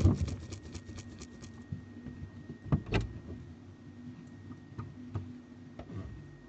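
A few faint knocks and clicks, the loudest two close together about three seconds in, over a low steady hum.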